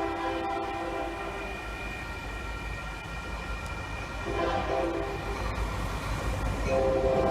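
Diesel freight locomotive's multi-note air horn sounding in blasts over a low train rumble: a chord fading out about a second and a half in, a short blast around four and a half seconds, and another blast starting near the end.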